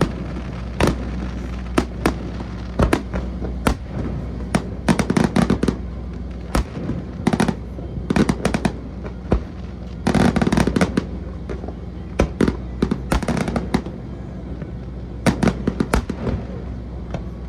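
Fireworks going off in a display: many sharp bangs and cracks at irregular intervals, with dense volleys of crackling about five seconds in and again about ten seconds in.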